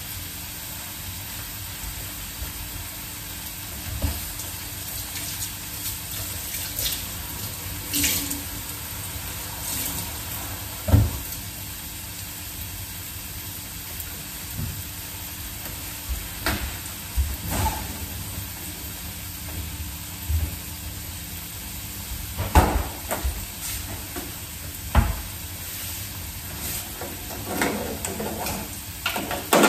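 Kitchen tap water running into a steel sink while salad leaves are rinsed, with scattered knocks and clatter of bowls and utensils. Under it is the steady hiss of a potato galette frying in olive oil in a pan.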